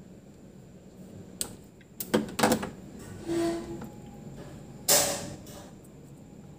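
Close-up clicks and snaps of a hand wire stripper and fingers working thin insulated wires: one click about a second and a half in, a quick cluster of snaps around two seconds, a short scrape, then one louder snap near five seconds.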